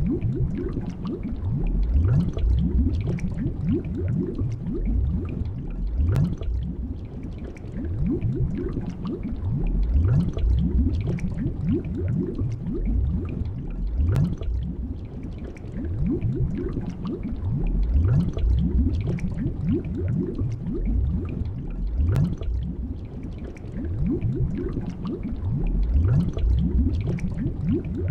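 Underwater ambience of bubbles gurgling continuously, with many quick little rising blips, swelling and fading every few seconds.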